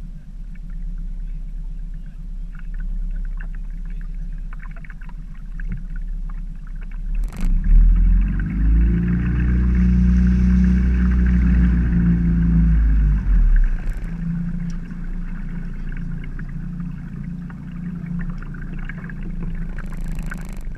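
Small outboard motor on a Drascombe Dabber dayboat running steadily. A third of the way in it is opened up for about five seconds, its pitch rising and then dropping back to a steady run.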